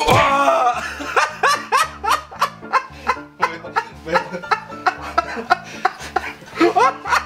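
A man laughing in a long run of quick, repeated cackles over light background music, opening with a loud exclamation.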